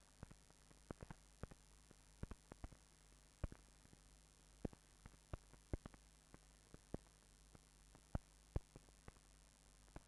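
Near silence on an old film soundtrack: a faint steady hum with scattered, irregular clicks and pops of surface crackle, about one to three a second.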